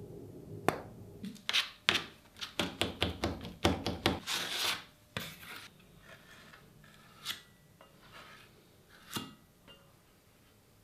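Plastic spreader scraping and smearing filler putty mixed with hardener: a quick run of sharp scraping strokes in the first half, then a few softer smears spreading it over a bare steel plate.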